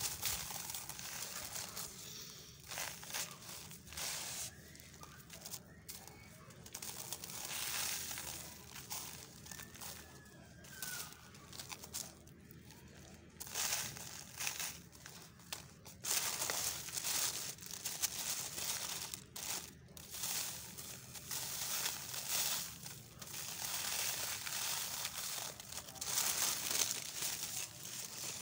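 Dry sand-and-cement lumps crumbled by hand and sifted down as powder and grit: irregular gritty crumbling and trickling hiss that comes and goes in uneven spells. The paper sheet lining the tub crinkles under the hands and the falling grit.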